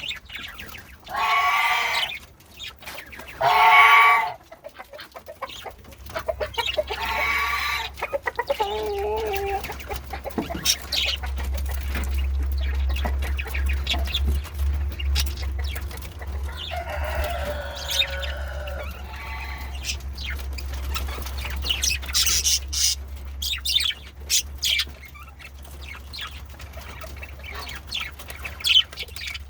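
Male budgerigars squawking and chattering. The loudest calls come in the first four seconds, and quick chirps and clicks follow. A low steady hum comes in about six seconds in.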